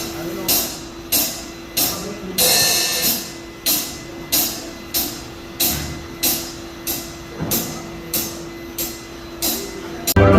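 Music: a slow, even percussion beat, with sharp cymbal-like strikes about every 0.6 seconds, each fading away, over a steady hum.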